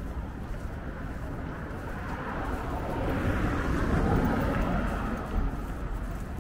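A vehicle passing on the street, its noise rising to a peak about four seconds in and then fading, over steady background traffic.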